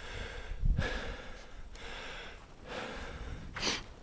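A man breathing heavily close to the microphone, several breaths in a row with a sharp one near the end, and a low thump about a second in.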